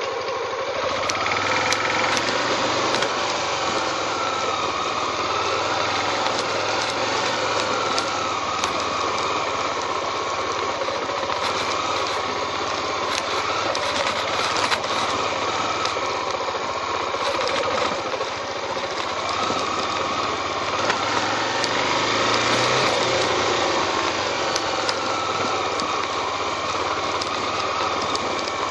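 Small motorcycle engine running while riding, its note rising and falling with the throttle, with scattered clicks and knocks.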